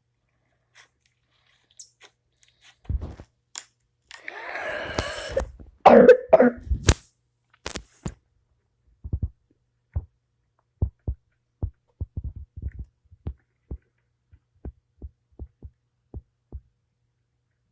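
A person coughing: several harsh coughs about six seconds in, the loudest sounds here, after a second or so of hissy noise. A run of short, soft, low thumps follows.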